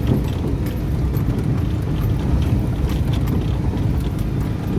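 An engine running steadily with a loud, low drone.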